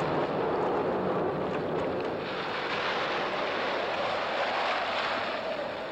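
Steady rushing noise of storm wind, with no distinct events.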